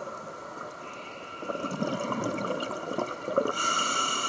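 Scuba regulator breathing heard underwater: exhaled bubbles gurgle out through the middle, then the hiss of an inhalation through the demand valve starts near the end.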